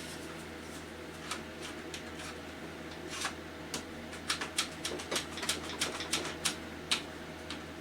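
Irregular light clicks and taps from objects being handled on a tabletop, sparse at first and coming several a second from about three seconds in, over the steady hum of a fan heater.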